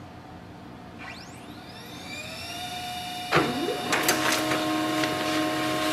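Pantum P2507W monochrome laser printer starting a print: a motor whine rises and levels off from about a second in. About three seconds in there is a clunk as the paper feed engages, then the machine runs steadily with a few clicks as it prints its Wi-Fi setup page.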